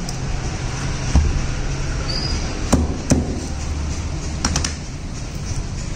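Sharp knocks and clicks from knife work on a whole feathered chicken being skinned: one about a second in, two close together near the middle and two more a little later, over a steady low rumble.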